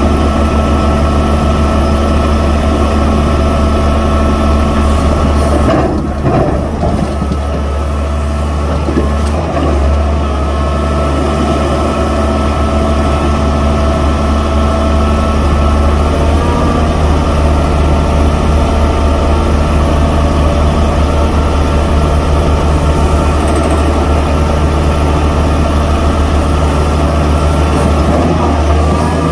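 Hydraulic breaker on a Doosan DX530LC-5 excavator hammering rock in rapid, continuous blows, over the excavator's engine running under load. This is a test run after a repair.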